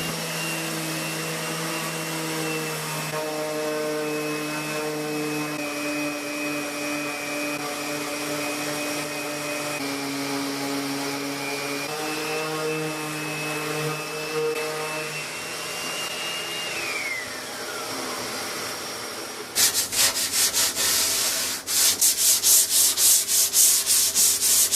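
Electric sander running on wood, its pitch shifting as the load changes, then switched off and winding down about 17 seconds in. A couple of seconds later come rapid back-and-forth hand sanding strokes, about three a second.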